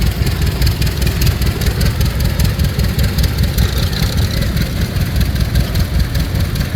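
Vintage farm tractor engine running steadily with a rapid, pulsing low rumble as it passes.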